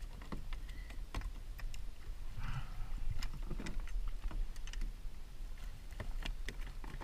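Irregular light clicks and knocks on a plastic fishing kayak as a freshly landed bass and the child move about on the deck, over a steady low rumble. A brief higher-pitched sound comes about two and a half seconds in.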